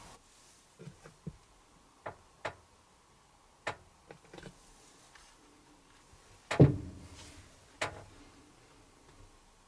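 Scattered light clicks and knocks over a quiet background, with one louder, deeper thump about six and a half seconds in and a sharp knock just after it.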